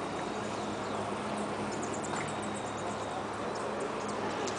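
Small birds chirping in a few short runs of high notes, over a steady low hum and outdoor background noise.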